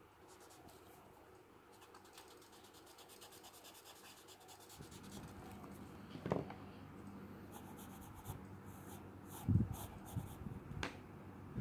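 Faint scratching of a pencil and paper blending stump rubbed over textured drawing paper in quick short strokes, with a few soft thuds in the second half.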